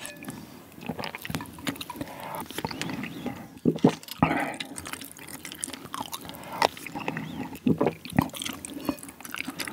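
Close-miked eating of spicy ramyeon: a spoon scooping and dripping the broth, with slurping and chewing of the noodles. Several sharp, louder clicks and slurps come about four seconds in and again near the end.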